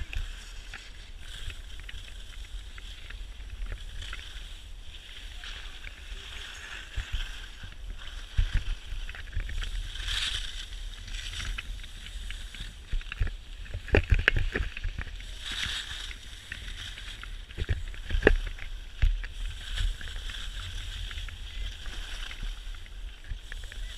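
Skis sliding and scraping over packed piste snow, a steady hiss, with wind buffeting the microphone. A few sharp knocks and thumps come around the middle.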